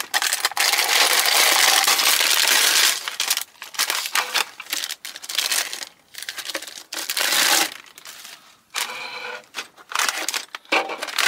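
Thin plastic wrapping film and plastic parts bags crinkling as they are handled and unwrapped. The crinkling is loud and continuous for about the first three seconds, then comes in shorter bursts.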